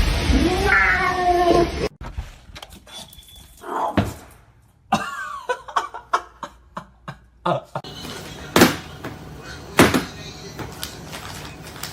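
A pet animal's short gliding cries, cut up between clips, followed by a string of clicks and several sharp knocks and thuds.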